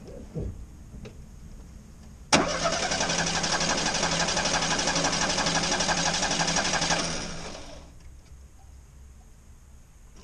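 The starter motor cranking the engine of a 1965 Opel Rekord that has stood unused for 30 years. It starts abruptly a couple of seconds in and runs evenly for about five seconds without the engine catching, then winds down over about a second.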